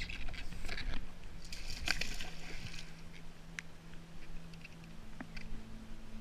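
Water sloshing and splashing around a kayak, busiest in the first three seconds, with lighter drips and ticks afterwards. A steady low hum runs underneath and steps up in pitch about five seconds in.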